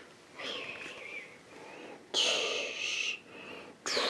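Breathing close to the microphone: three hissy breaths of about a second each, with a slight whistle.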